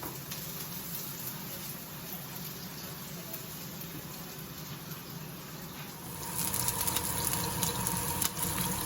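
Garlic and onion sizzling in hot olive oil in a non-stick pan, a steady hiss that grows louder and brighter about six seconds in.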